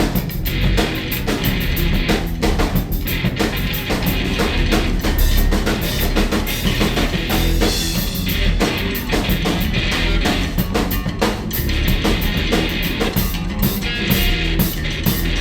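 Loud, dense free-jazz band music: a busy drum kit hitting hard and fast, with electric guitar and bass.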